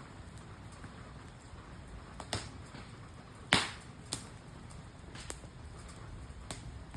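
Wood campfire crackling: about five sharp pops spaced a second or so apart, the loudest about halfway through.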